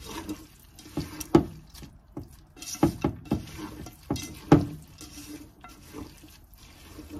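Raw rice, lentils and spices being kneaded by hand in a rice cooker's metal inner pot: a soft rustling squish of the wet grains, broken by several sharp knocks of the hand against the pot, each ringing briefly.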